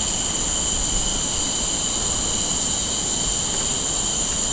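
Chorus of forest insects: a steady, high-pitched drone at several pitches at once, unbroken throughout.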